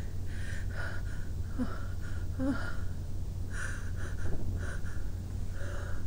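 A sick person sniffing and breathing in short, irregular catches, trying to bring on a sneeze that won't come.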